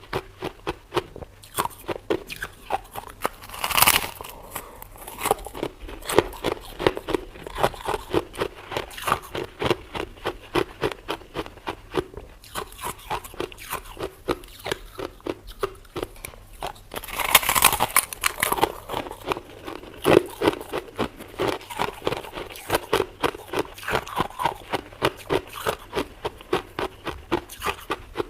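A person chewing freezer frost, crunching in quick, regular chews about four a second. Louder crunching bites come about four seconds in and again around seventeen to twenty seconds in.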